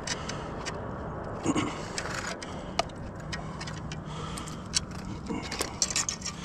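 Scattered light clicks and rattles at an uneven pace, over a steady low hum.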